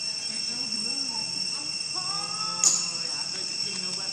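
Steady high-pitched drone of insects in the forest undergrowth. About two seconds in a brief pitched call sounds, ending in a sharp click.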